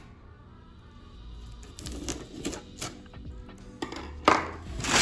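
A knife slitting the packing tape on a cardboard box: a run of short scraping clicks, then louder rasps of cardboard as the box is pulled open near the end.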